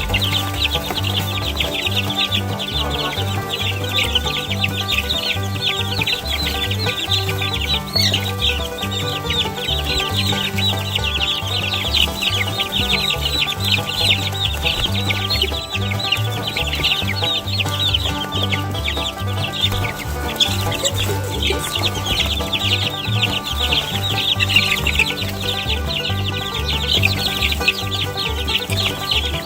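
A brood of two-week-old Barred Rock chicks peeping constantly and densely, worked up over a treat of cooked egg. Background music with a stepping bass line runs underneath.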